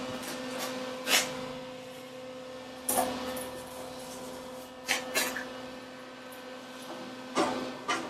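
Scattered clanks and knocks of steel workstation pieces and 90-degree welding magnets being set in place, a handful of short sharp hits over a steady electrical hum.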